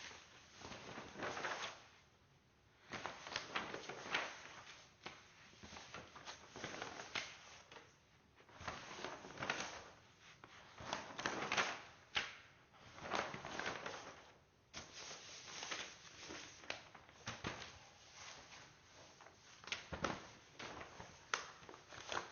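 Building work in a small room: irregular scraping, rubbing and knocking as materials and tools are handled, with short pauses between bouts.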